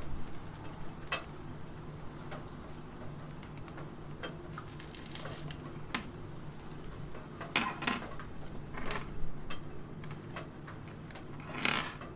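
Computer keyboard typing in scattered, irregular keystrokes and short runs, the loudest run near the end, over a steady soft patter of rain.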